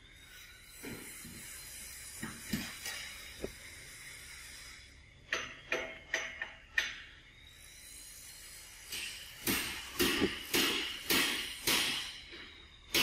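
A series of sharp knocks, a few scattered early and then about two a second in the last four seconds, over a faint steady high whine.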